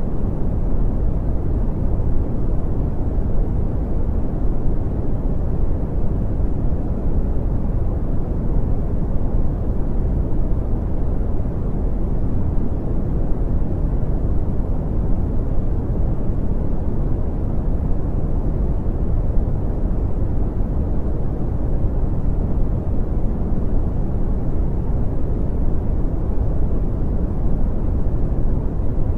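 Steady brown noise: an even, deep rumbling hiss with most of its energy in the lows, fading off in the highs, unchanging throughout.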